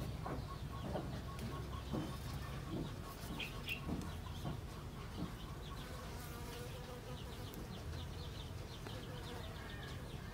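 A flying insect buzzing: a steady low drone that wavers in pitch.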